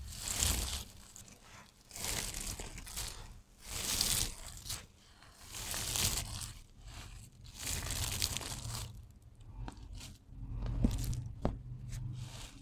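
Handfuls of dry shaved soap strips crunching and crinkling as they are squeezed and crushed between the hands, in waves about every two seconds, with a few sharp crackles near the end.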